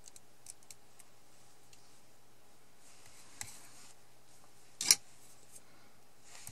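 Quiet handling of a small die-cut paper word and its double-sided-tape backing with a pick: faint ticks and a soft paper rustle, then one sharp click about five seconds in.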